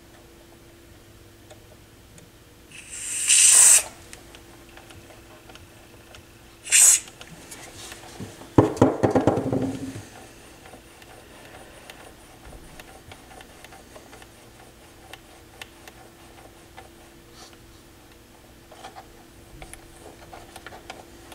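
Aerosol contact cleaner sprayed into sticky potentiometers and a switch: a hissing spray of about a second around three seconds in, and a short one around seven seconds. Shortly after comes about a second and a half of scratchy rattling.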